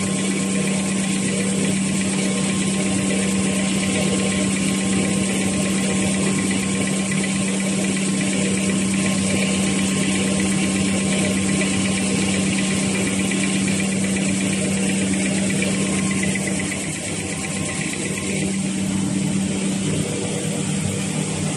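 Automatic V-fold facial tissue folding machine running at production speed: a steady mechanical din with a constant low hum.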